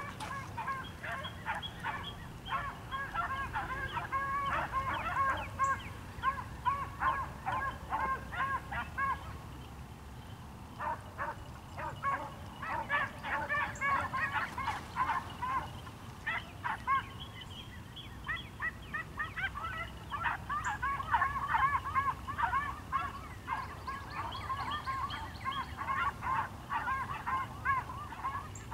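A pack of beagles baying in chorus while running a rabbit, many short overlapping cries in quick succession. The pack eases off about ten seconds in and again around eighteen seconds, then picks back up.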